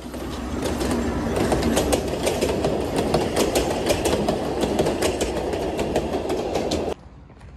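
Passenger train passing close by: a steady rumble with rapid, irregular clicking of the wheels over the rail joints. The sound cuts off suddenly about seven seconds in.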